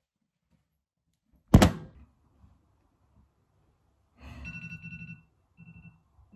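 A single loud thud, then a couple of seconds later a phone ringing: a high electronic tone with a buzzing undertone, one burst of about a second followed by shorter repeats.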